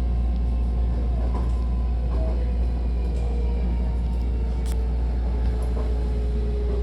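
Hankyu electric commuter train running with a steady low rumble, a faint tone easing slightly lower in the second half, as it approaches its stop.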